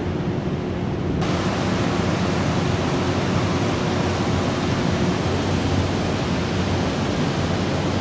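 Steady rushing outdoor city ambience with wind on the microphone and a low, steady hum underneath; the hiss turns brighter and fuller about a second in.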